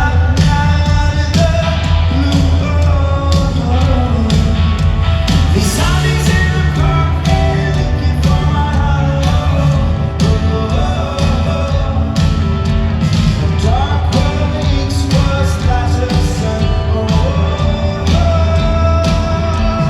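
A live rock band playing a song at full concert volume, with lead vocals over a steady drum beat and a heavy, booming low end.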